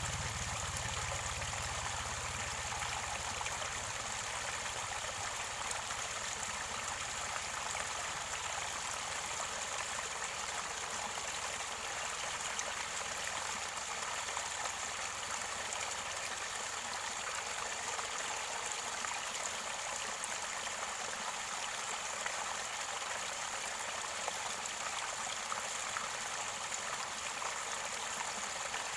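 Mountain stream water flowing and gurgling at its spring source, a steady rush with small splashes and drips.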